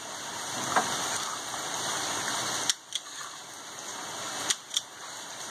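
A bulldog growling and huffing as she tugs at a Jeep's tow-hitch ball; the noise stops after about two and a half seconds and a few sharp clicks follow. A steady hiss of rain runs behind.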